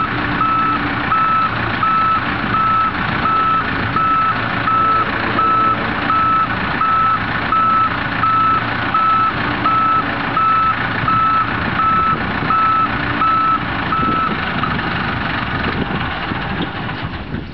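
Boat travel lift's warning beeper sounding about once every 0.7 seconds over its engine running, as the lift lowers a cabin cruiser onto blocks. The beeping stops near the end while the engine keeps running.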